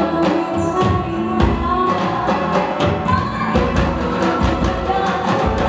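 Live band music: a woman singing into a microphone over electric bass, keyboards, electric guitar and a drum kit, with a steady drum beat of about two hits a second.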